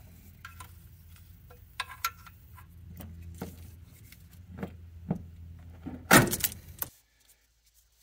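Scattered clicks and knocks as the old accelerator cable's plastic firewall grommet is pried and ripped out of the firewall metal, with a loud crack about six seconds in. The sound then cuts off abruptly.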